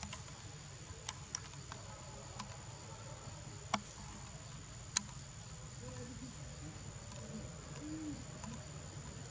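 Quiet outdoor ambience with a steady high-pitched insect drone over a low hum, broken by a few sharp clicks, the two loudest about a second apart near the middle. Faint short low-pitched sounds come in from about six seconds in.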